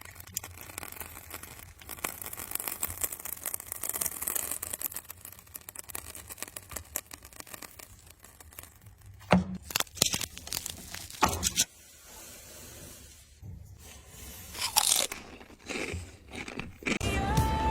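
Dense crackling and crunching, with sharp clicks and knocks after about nine seconds, as something is handled and worked by hand.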